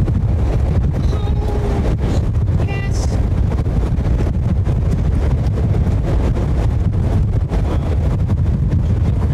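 Wind buffeting the microphone over the road rumble of a moving vehicle, with a couple of brief high squeaks about one and three seconds in.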